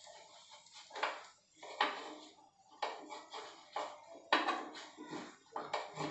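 Spatula clinking and scraping against a tawa as tikkis frying in a little oil are turned over: about a dozen irregular knocks and scrapes.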